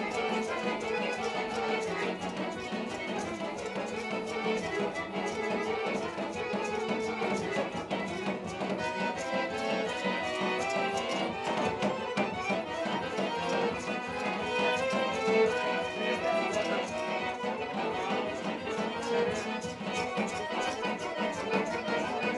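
Live Romani folk dance music played on two violins and an accordion, with a steady quick pulse.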